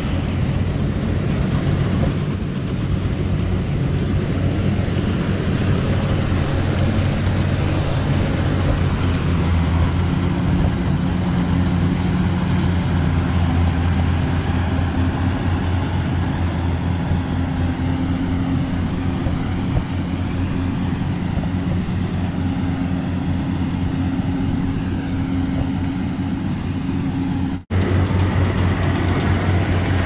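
Yanmar rice combine harvester running steadily as it harvests standing rice: a continuous engine drone with a low, level hum. The sound cuts out for an instant near the end, then carries on.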